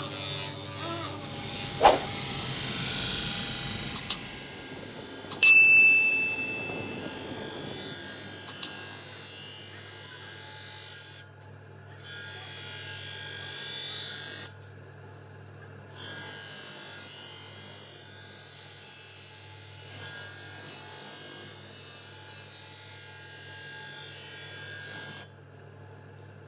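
Steel sword blade being ground against a spinning grinding wheel: a steady hiss of metal on abrasive over the motor's hum, dropping away briefly three times. A single sharp clink about two seconds in.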